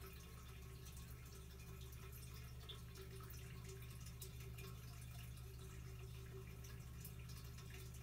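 Faint room tone: a steady low hum with a light trickle of water and a few faint ticks.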